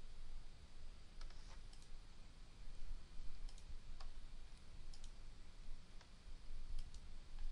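Faint computer mouse clicks, about nine scattered over several seconds, some in quick pairs, as items in a list are selected; a low steady hum sits underneath.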